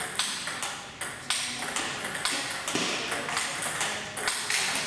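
Table tennis ball clicking off paddles and the table in a rally, a quick series of sharp hits.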